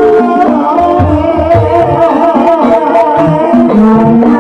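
Live ebeg (kuda kepang) dance music in the dangdut kreasi style: hand drums beat a steady pattern under held melodic instrument notes, with a voice singing.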